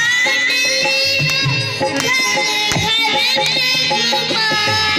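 A child singing a Hindi devotional bhajan into a microphone over a PA, accompanied by tabla, the melody sliding up and down over steady drum strokes.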